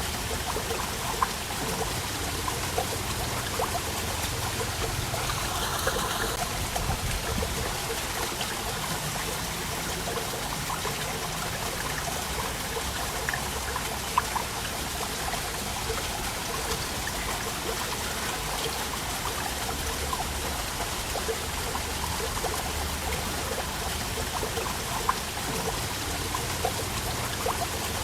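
Waterfall: water falling and splashing steadily, with a trickling sound and scattered small splashes.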